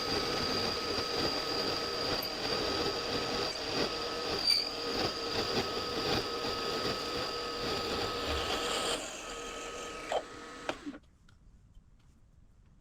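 Precision Matthews PM-25MV benchtop milling machine running with a steady whine. About nine seconds in it gets quieter, two clicks follow, and it stops about eleven seconds in.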